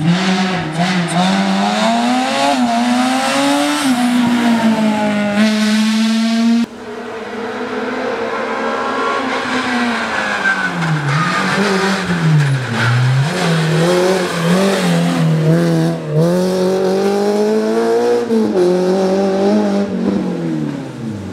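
Rally cars at full throttle on a tarmac stage: one car's engine revs hard, its pitch rising and falling through gear changes, cut off abruptly about seven seconds in. A second car then brakes and climbs through the gears, its engine note dipping and rising again before fading near the end.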